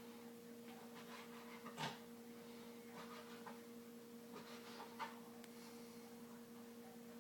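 Faint steady hum of a refrigerator, two low tones an octave apart, with a couple of soft brief knocks about two and five seconds in; the fridge seems to be on its way out.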